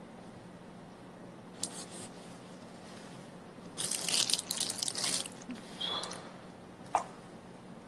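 Clear plastic bag crinkling as it is handled, in short crackling bursts about one and a half seconds in and again for over a second from about four seconds in, with a few smaller crinkles after, over a faint steady hum.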